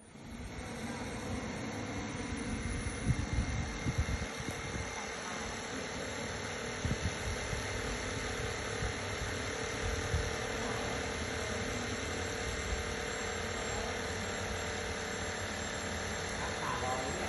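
KingTech K210 model jet turbine in a Rebel Pro RC jet idling on the runway: a steady whine with a high tone. Wind buffets the microphone with low rumbles.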